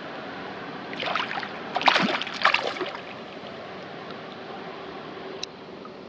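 Splashing in shallow river water for about two seconds as a barbel is released from a landing net, over steady flowing water.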